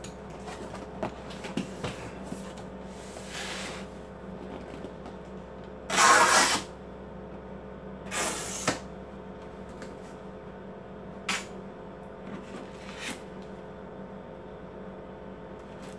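Cardboard printer box being opened and its packing handled: short bursts of cardboard scraping and rustling, the loudest about six seconds in, with a few light clicks later. A steady low hum runs underneath.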